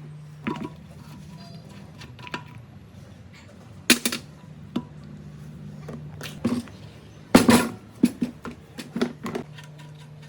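Irregular sharp metal clanks and knocks of tools and parts being handled, loudest about four seconds in and again near the three-quarter mark, over a steady low hum.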